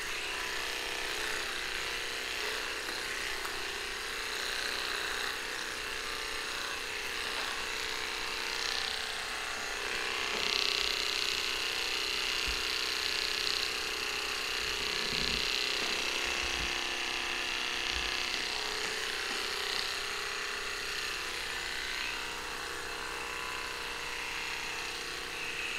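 Electric dog clippers running with a steady buzz as they trim a small dog's coat, a little louder for a few seconds around the middle.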